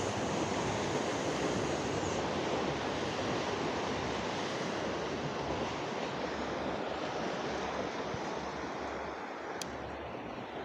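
Steady rushing noise of sea surf and wind on the shore, slowly fading, with one faint sharp tick near the end.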